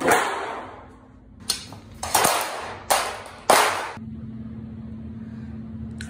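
Handling noise: a few sharp rustling knocks as a sheet of paper is handled and laid flat on a countertop, each fading quickly. A steady low hum follows.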